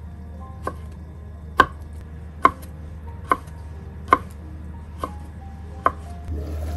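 Chef's knife slicing pickles on a wooden cutting board: seven sharp knocks of the blade on the board, a little under one a second.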